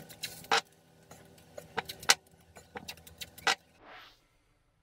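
Blue masking tape being pulled off its roll and pressed down along a door edge: a run of sharp crackling clicks, then a short rasp of tape unreeling about four seconds in.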